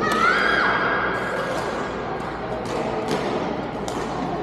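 Badminton play in an echoing sports hall: a long high squeak that rises then holds near the start, and several sharp racket strikes on the shuttlecock later on, over a background murmur of the hall.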